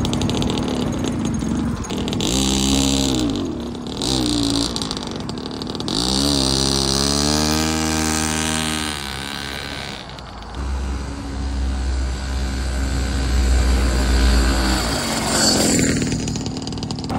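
Small petrol engine of a mini motorcycle (pocket bike) revving up and falling back several times as it is ridden off, with one longer rise and fall in pitch a few seconds in, then running more steadily.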